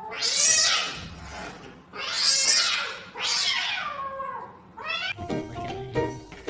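A cat gives three loud, harsh calls, each falling in pitch. Plucked-string music starts about five seconds in.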